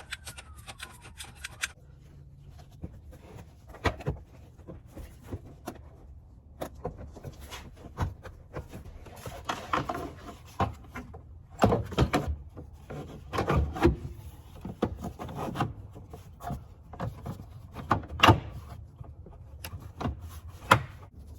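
Irregular knocks, clicks and scraping from hands-on work, with louder clusters of knocks in the middle and one sharp knock about two-thirds of the way through.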